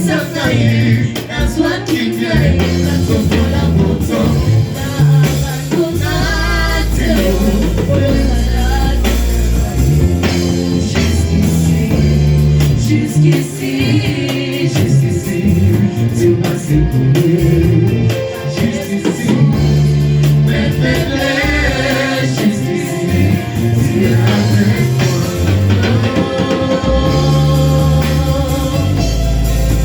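Church worship music: singing over electric guitar, bass and drums.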